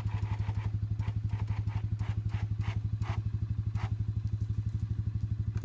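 Small engine idling with a steady, rhythmic putter, with a few light clanks over it during the first few seconds.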